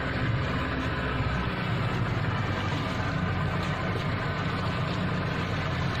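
Motorboat engine running steadily: a constant low drone under an even rushing noise.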